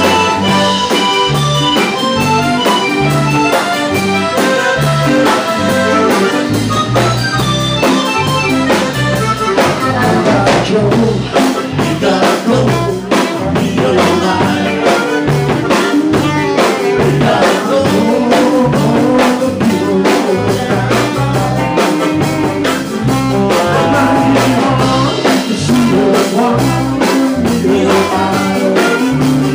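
Live band playing an upbeat song, with saxophone, drum kit and a bass line that repeats in even low notes.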